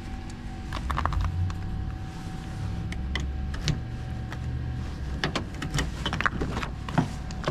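Scattered clicks and clunks over a low rumble, the sharpest click near the end: a Honda Fit's driver door being handled and its latch opened.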